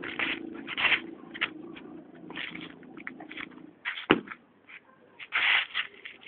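Shoes scuffing and scraping on a concrete floor in short irregular strokes as someone moves through martial-arts footwork, with one heavy thump about four seconds in. A low steady hum underneath dies away just before the thump.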